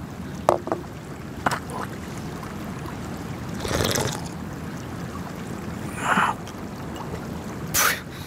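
Steady wind-like outdoor hiss, with a few light clicks of small ceramic cups and a teapot handled on a table, and a sip from a small cup about four seconds in.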